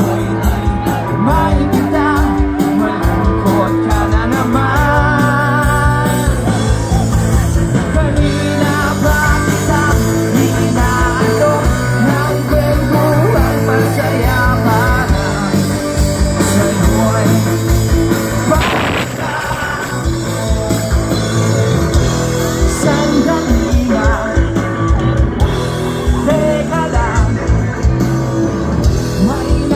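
Live band playing rock music with a singer, loud and steady with a driving beat.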